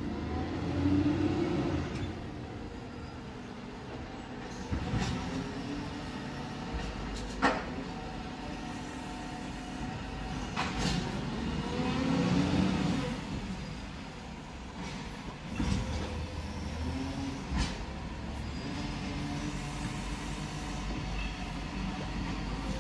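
Volvo garbage truck's diesel engine running and revving as it works along the street, the pitch swelling up and down several times. A few sharp clanks come through, about four over the stretch.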